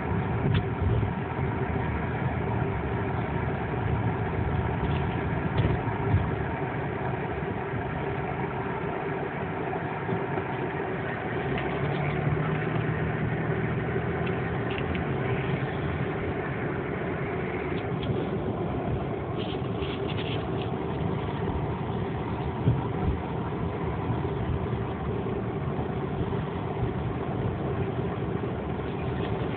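Car engine and tyre noise heard from inside the cabin while driving, a steady hum and rumble with a few brief knocks.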